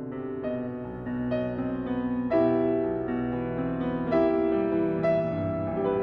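Background music led by a gentle piano, playing sustained notes and chords with new notes struck about every half second to a second.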